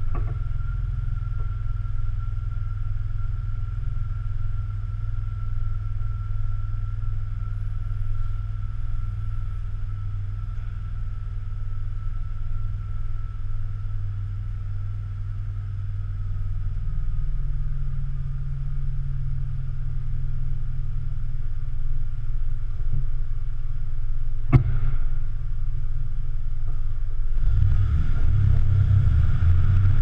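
BMW E46 330Ci's 3.0-litre straight-six, fitted with a Bastuck aftermarket exhaust, idling with a steady low rumble in an underground garage. A single sharp click comes near the end, and a few seconds before the end the exhaust note grows louder and rougher as the car pulls away.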